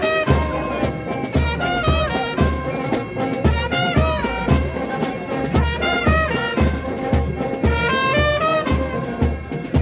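Marching band of brass and clarinets playing a tune over a steady low beat, about two beats a second.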